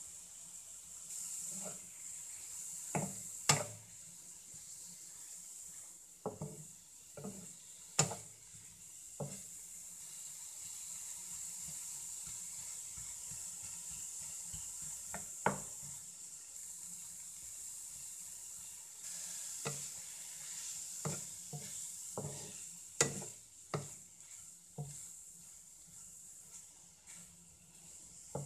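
Broccoli sizzling in oil in a frying pan while a wooden spatula stirs and breaks it up. Irregular sharp knocks of the spatula against the pan sound over a steady sizzle.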